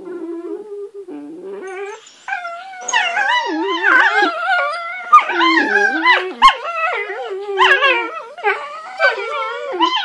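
Whippet puppies making drawn-out, wavering vocal noises as they mouth each other in play. Quieter and steadier for the first two seconds, then louder and higher, rising and falling in pitch.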